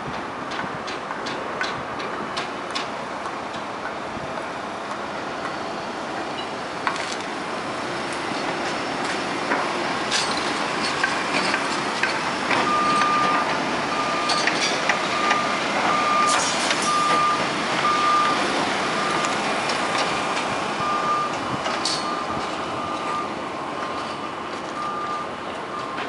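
Construction-site reversing alarm beeping in a steady run of short single-pitch beeps that starts about halfway through, over a steady outdoor rush with scattered knocks and clicks.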